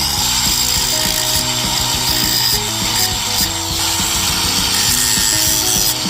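Corroded lawnmower battery terminals being scrubbed clean with an abrasive tool, a loud steady scraping rasp.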